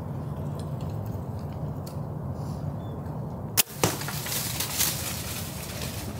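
Compound bow shot: a sharp crack of the string about three and a half seconds in, then a second sharp knock a quarter second later. Deer then scramble off through dry leaf litter, a rustling clatter that fades after about a second.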